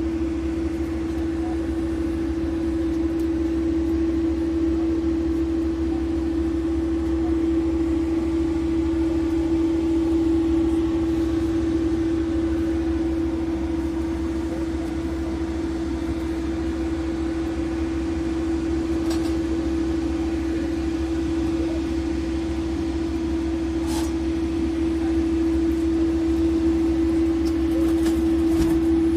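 Aircraft refuelling machinery running steadily: a constant low rumble with a steady hum tone over it, and a couple of faint clicks in the second half.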